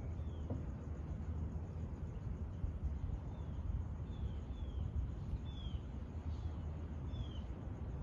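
Short, falling bird calls, repeated irregularly about six times, over a steady low rumble.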